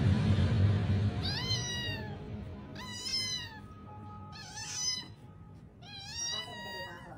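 Tabby cat meowing four times, each call falling in pitch and lasting under a second, after a low rumbling noise in the first second.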